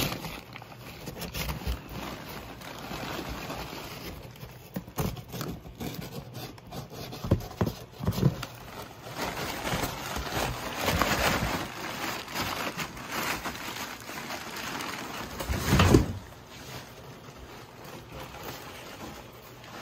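Akita puppy rooting through a cardboard box full of crumpled packing paper: irregular paper rustling and crinkling with cardboard scraping and bumps, and one heavier knock late on.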